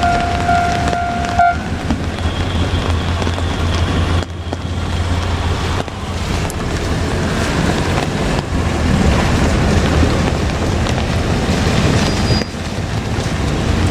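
KiHa 200 diesel railcar running past with a low rumble, heavily overlaid by wind buffeting the microphone. A steady high tone cuts off about a second and a half in.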